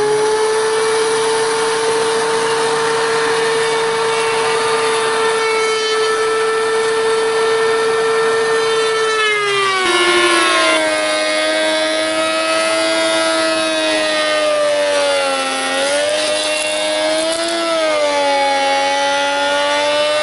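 DeWalt benchtop thickness planer running with a loud, steady whine. About halfway the pitch drops lower and sags and recovers twice as boards feed through and load the cutterhead.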